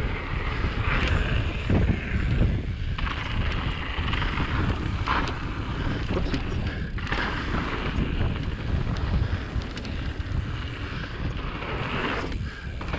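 Wind rushing over the camera microphone and knobby mountain bike tyres rolling fast on a dirt trail. The noise swells and eases every second or two as the bike rolls over the jumps.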